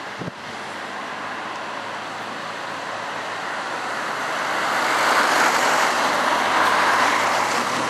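An Alstom Citadis 302 tram running toward the camera on rain-wet rails. A hiss from the wheels and running gear grows steadily louder over several seconds, over a faint low hum.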